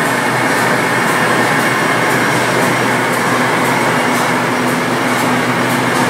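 Steady industrial background noise of a running plant floor: a loud, even mechanical roar with a low hum underneath.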